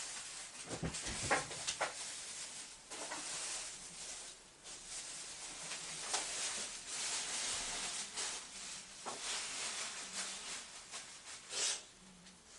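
Rustling and rubbing handling noises, with a few sharp knocks or clicks, the clearest about a second in and just before the end.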